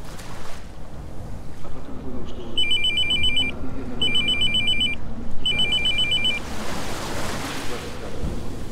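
Smartphone ringing with an incoming call: three bursts of a rapid warbling electronic trill, each about a second long, starting about two seconds in, over a steady noisy background.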